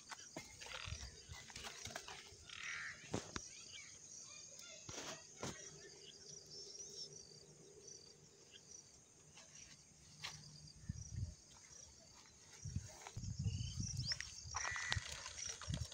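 Insects trilling steadily, a high-pitched pulsing chorus, with a few clicks. Near the end come low thuds and rustling as footsteps cross the grass.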